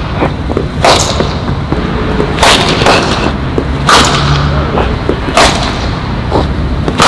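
Cricket bat striking the ball in practice nets: four loud, sharp cracks about a second and a half apart, with fainter knocks in between, over a steady low rumble.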